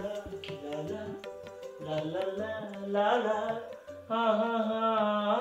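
Background score music: a bending, Indian-style melody over a hand-drum beat. It grows louder about four seconds in, when a strong held melodic line comes in.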